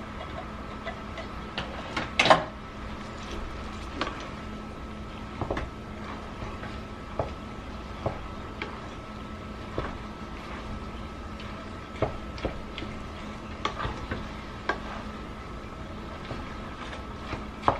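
Wooden spoon stirring ground beef and tomato sauce in a metal pot, with scattered knocks and scrapes against the pot and a louder clatter about two seconds in, over a steady hum.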